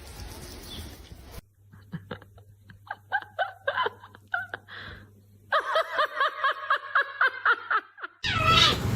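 A cat making short pitched chirping meows, spaced out at first, then a fast run of about six a second. Near the end comes a falling cry, then loud noise.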